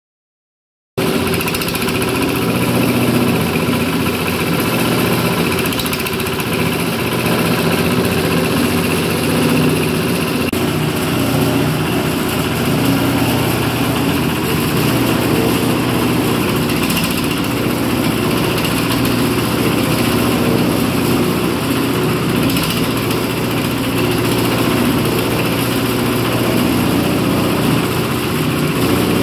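Small single-cylinder diesel engine running steadily, driving a coconut husk peeling machine. The sound cuts in abruptly about a second in.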